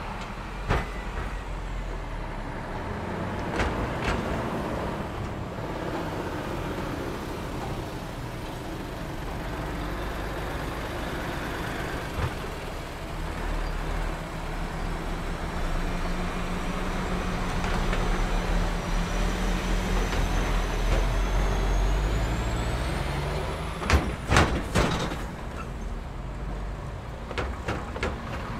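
Road traffic driving over a railway level crossing: cars and heavy trucks rolling across, with sharp clunks as their wheels hit the crossing rails, a few early and a cluster near the end. A heavy truck's engine hums steadily through the middle, then falls away.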